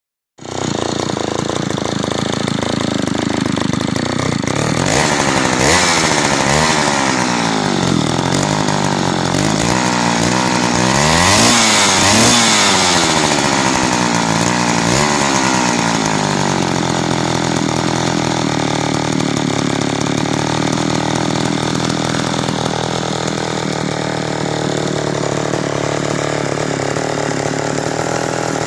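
Homelite Super XP 1130G Auto vintage two-stroke chainsaw running. It is revved up and let back down several times, then settles to a steady idle. It is running without an air cleaner and its carburettor still needs a little tuning.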